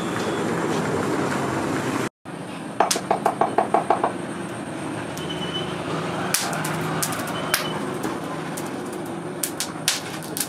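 Steady background rumble with a rapid run of about ten sharp knocks lasting about a second, about three seconds in, and a few scattered clicks near the end.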